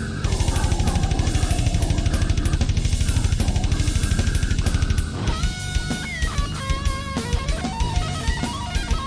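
Background rock music with a fast, steady drum beat; about five seconds in it changes to a guitar melody of separate picked notes over lighter drums.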